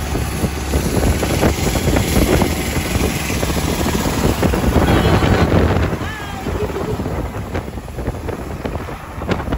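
Engine and road noise of a moving vehicle, heard from aboard, with wind buffeting the microphone; another auto-rickshaw runs close alongside.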